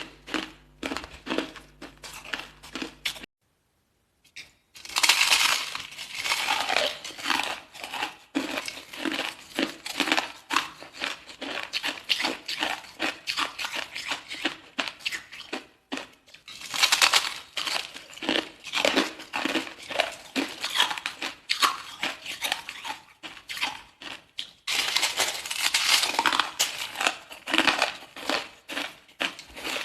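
Hard ice bitten and chewed close to the microphone: dense runs of crackling crunches, broken by a silent second or so about three seconds in, with louder bursts of crunching about five, seventeen and twenty-five seconds in.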